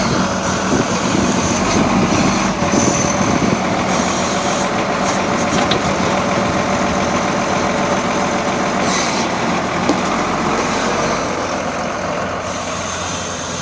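Wheel loader's diesel engine running steadily under load while it lifts and dumps a bucket of wood chips, easing off slightly near the end.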